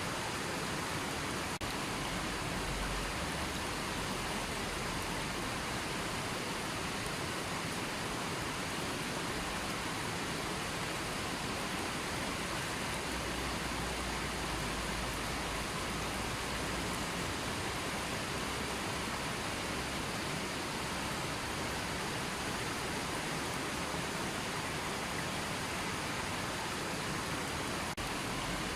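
River water flowing and rushing steadily.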